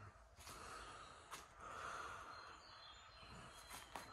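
Near silence: faint background hiss with a few faint soft ticks.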